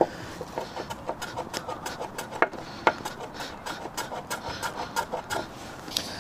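Irregular short wooden clicks, taps and scrapes, a few a second, as thin wooden shims are fitted and worked into place at a sawhorse leg.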